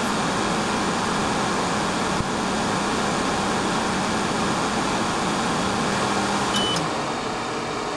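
xTool F2 Ultra laser engraver running while its MOPA fiber laser colour-marks a titanium watch dial: a steady fan-like hiss with a low hum under it, a brief high beep near the end, and the sound cutting off suddenly at the end.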